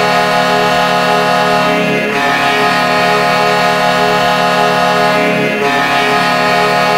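Chicago Blackhawks goal horn sounding in one long, steady, deep blast rich in overtones, wavering briefly about two seconds in and again past five seconds.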